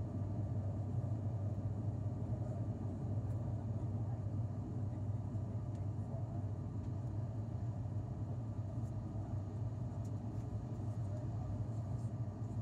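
ATR 72 twin-turboprop airliner droning steadily in the climb, heard inside the passenger cabin: an even, low propeller hum over a wash of engine and air noise.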